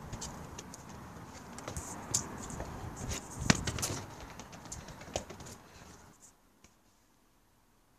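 A football knocking and bumping on wooden decking as a dog plays with it, with scattered clicks and one loud thump about three and a half seconds in. It goes near quiet at about six seconds.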